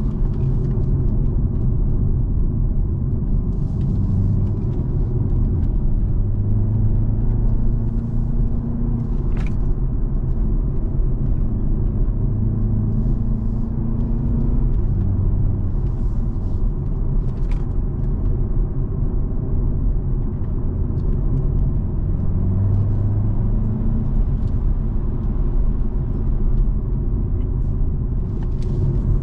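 BMW car on a race track heard from inside the cabin: a steady low drone of engine and road rumble, the engine tone swelling and easing a few times with the throttle. Two brief sharp clicks sound partway through.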